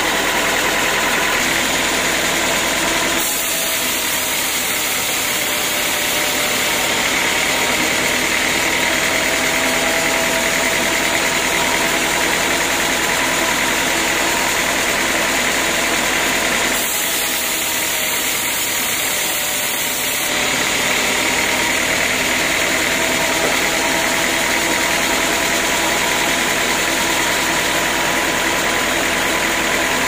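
Band sawmill running steadily as it saws a teak log, a continuous mechanical drone with steady machine tones. The sound changes abruptly about three seconds in and twice more later on.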